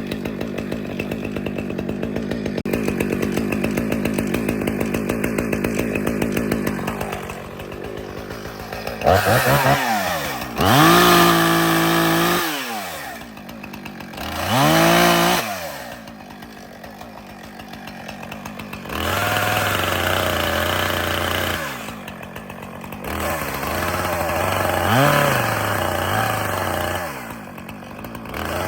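Husqvarna two-stroke chainsaw bucking a fallen tree trunk. It runs steadily under load in the wood at first, then revs up sharply and drops back twice near the middle, and carries on cutting at varying speed.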